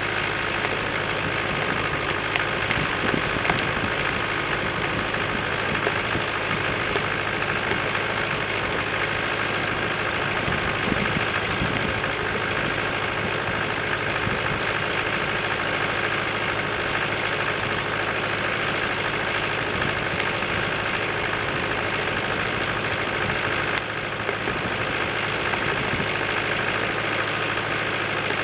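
International Harvester 250 D tractor's diesel engine running at a steady idle, with a few faint ticks over it.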